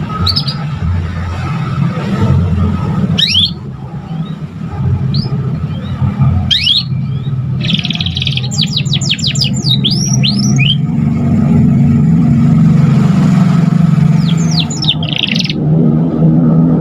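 Young domestic canary singing in broken phrases, as a juvenile does while learning its song: scattered high, quick, downward-sweeping chirps, with a fast run of notes about halfway through and a short trill near the end. A steady low hum runs underneath.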